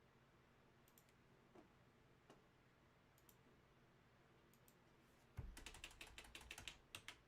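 Near silence with a few faint ticks, then from about five seconds in a quick, dense run of light clicks and clatter.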